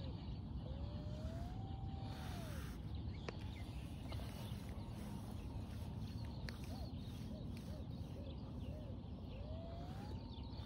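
Minelab Vanquish 540 metal detector sounding its target tone as the coil is swept back and forth over a buried target: a long tone that rises and falls about a second in, a run of short wavering beeps in the middle, and another long rising-falling tone near the end.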